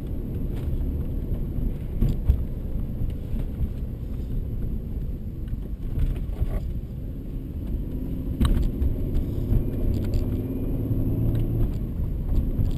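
Mercedes C32 AMG's supercharged V6 engine and road noise, heard from inside the cabin while driving, a steady low rumble whose pitch shifts a little. A few sharp clicks and jingles, like loose keys or cabin rattles, stand out, loudest about two and eight and a half seconds in.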